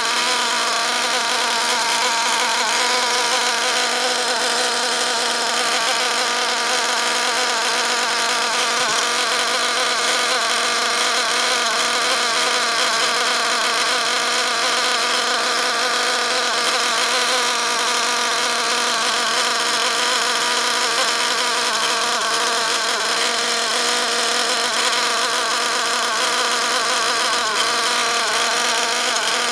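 Ninja nitro two-stroke R/C engine running flat out at a steady speed with a high, even buzz, on a very rich break-in mixture that seats the new piston and sleeve. The pitch holds steady with no revving or blipping.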